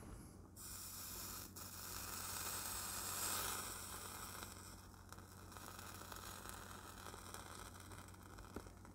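Flux sizzling faintly under a hot soldering iron tip as it heats the wire ends at a mains terminal, boiling off as smoke; the sizzle swells a few seconds in, then eases off.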